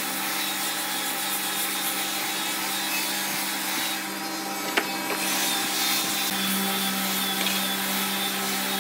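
Handheld belt sander running steadily, its sanding belt rubbing across the face of a flat wooden panel, over a constant motor hum.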